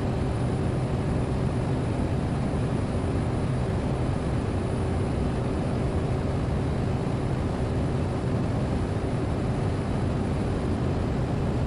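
Steady cockpit drone of a Cessna 208 Grand Caravan's single turboprop engine and propeller in cruise-descent, an even low rumble with a faint steady tone over it.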